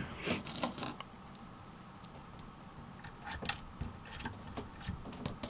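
A few light, scattered metallic clicks and taps as chrome Schaller guitar tuners are handled and fitted on a guitar headstock.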